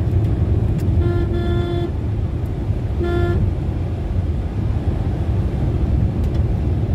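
Steady low rumble of engine and tyre noise inside a moving car, with a vehicle horn honking twice: a held honk of about a second, then a short one a second later.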